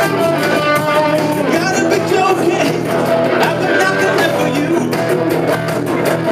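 A live rock band plays an original song: electric guitars with a man singing over them.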